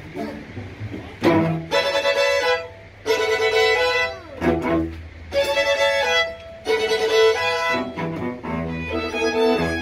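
A string quartet of two violins, viola and cello playing live, in phrases that come in strongly and fall back between them.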